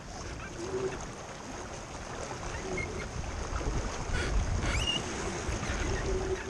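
Water rushing along the hull of a small racing keelboat under sail, with wind buffeting the microphone: a steady noisy rush with a stronger low gust a little past the middle.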